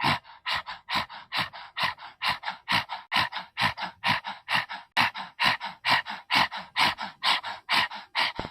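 A person doing a yogic breathing exercise: rapid, forceful, rhythmic breaths, about two and a half a second, each a short hissing puff of air.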